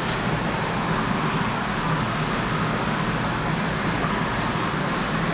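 Jacuzzi jets running: a steady rush of churning water, with a short click at the very start.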